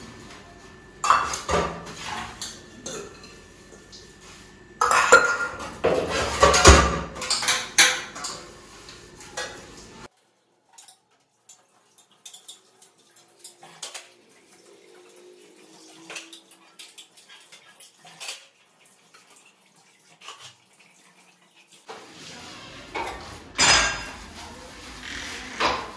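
Dishes, pots and cutlery clattering and clinking as they are washed and stacked in a kitchen. It comes in loud bunches of clatter over the first ten seconds, turns to sparse faint clinks, and picks up again with more clatter near the end.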